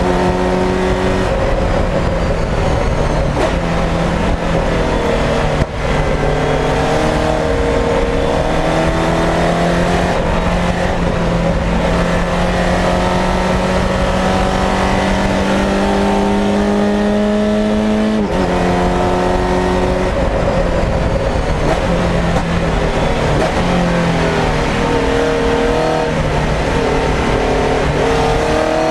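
Volkswagen Fun Cup race car's engine heard from inside the cabin under hard driving, the pitch climbing through the revs and dropping sharply at each gear change; one long climb ends with a sudden drop about eighteen seconds in. A steady hiss of road noise runs underneath.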